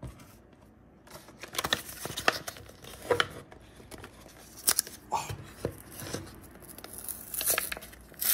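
A Yu-Gi-Oh booster pack's foil wrapper being torn open and crinkled by hand: short spurts of sharp crackling and tearing that begin about a second in and are loudest near the end.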